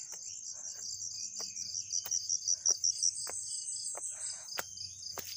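Insects trilling in a steady high-pitched chorus of rapid pulses, louder for a stretch about two to three seconds in. Soft crunching steps on the leaf-strewn trail sound beneath it, with a few sharp clicks.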